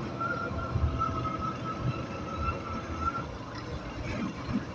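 Motorcycle riding in city traffic: a steady low rumble of engine, road and wind noise, with a thin steady high tone that stops about three seconds in.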